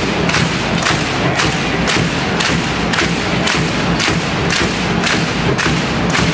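Handball crowd in an indoor arena beating out a steady rhythm, about two strokes a second, over the general crowd noise.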